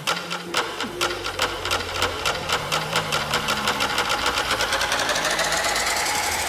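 Electronic music build-up: a drum roll that speeds up steadily over a low sustained bass, while a sweep climbs in pitch toward the end.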